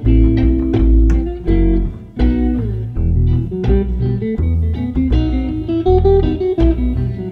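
Hollow-body archtop electric guitar playing a run of picked single notes, with a deep bass line underneath.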